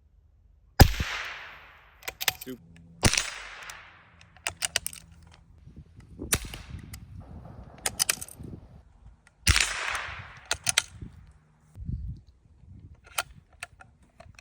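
A .22 LR-converted Lee Enfield SMLE Mk IV*, a single-shot rifle, fires subsonic rounds: three sharp cracks, each with a short echoing tail. Between the shots come quick metallic clicks of the bolt being worked to reload.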